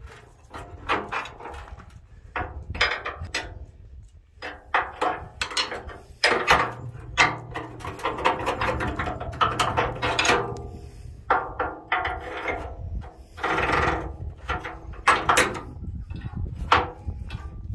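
Irregular knocking and clanking of hand tools and roll-bar parts being handled and bolted up, with a busier run of clatter about six to ten seconds in and some strikes ringing briefly.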